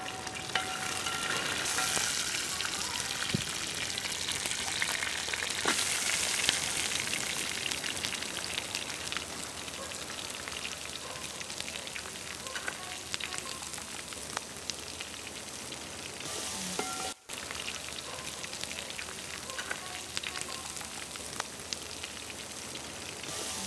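Dried red chillies, curry leaves and sliced onions sizzling in hot oil in a wide metal pan as they are stirred, with scattered small clicks and scrapes from the stirring.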